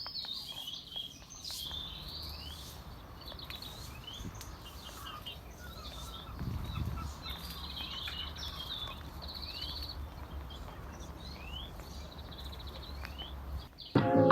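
Several small songbirds chirping and singing, with fast trills and short sweeping notes, over a low steady background rumble. Music starts abruptly near the end.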